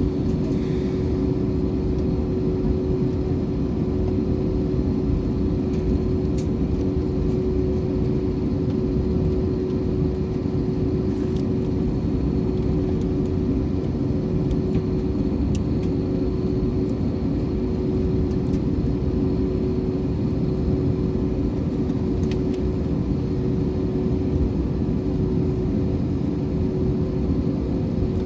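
Steady cabin noise inside an airliner before takeoff: a constant low rumble of the engines and air systems with a steady hum over it, and a few faint clicks.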